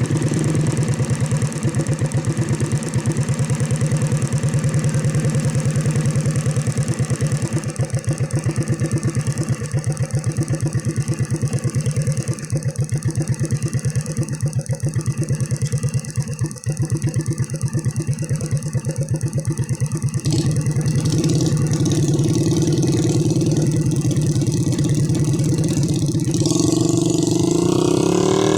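A small vehicle engine running steadily at low revs with an even, rapid pulse; its pitch rises near the end.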